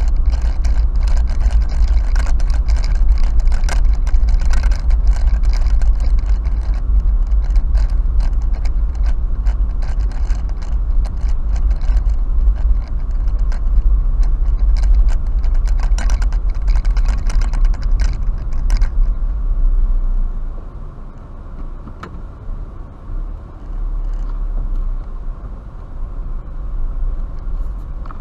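Car cabin noise heard from a dashboard camera while driving: a heavy low road rumble with frequent sharp clicks and rattles. About two-thirds of the way in the rumble and rattling drop away as the car slows to a stop.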